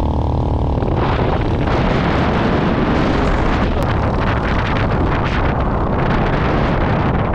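Venom X22 GT 250cc automatic motorcycle riding along, its engine and exhaust running at a steady speed, with wind rushing over a helmet-mounted microphone. The engine's even tone is clear for about the first second, then is mostly covered by the wind.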